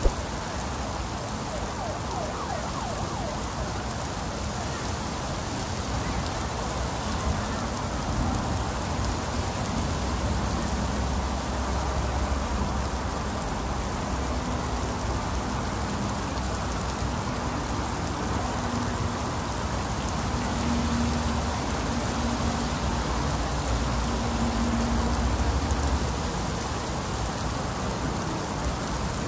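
Heavy rain falling steadily, an even hiss of rain on wet ground and surfaces.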